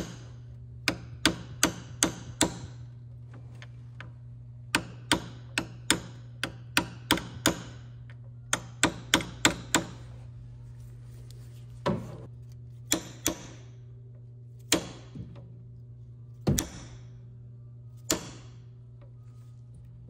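Small hammer tapping metal on metal on the pin ends of a timing chain connecting link, peening them over to rivet the link on a Mercedes OM642 diesel engine. Quick runs of sharp taps, several a second, give way about halfway through to single taps a second or two apart.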